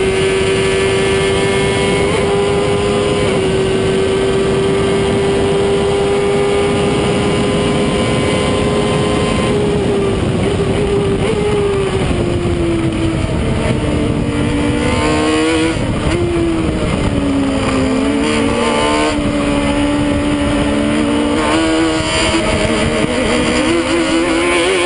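Stohr WF-1 sports racer's engine at racing speed: held at high, steady revs for about ten seconds, then the pitch drops in a few steps as it slows and downshifts, runs lower and uneven through the corner, and climbs again near the end under acceleration. Wind rush over the open cockpit runs underneath.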